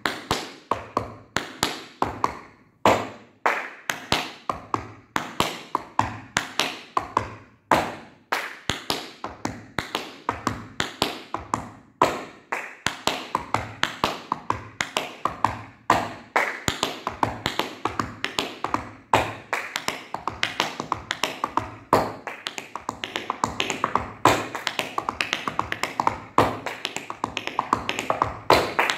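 Tap shoes striking a wooden floor in a flap heel-heel tap combination: sharp metal-tap clicks in quick repeating groups, coming denser toward the end.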